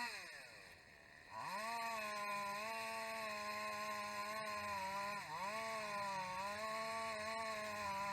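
Small handheld power-tool engine running at high speed. Its pitch sags and then climbs back up just after the start, and it dips briefly again about five seconds in, as the throttle is eased or the engine takes load.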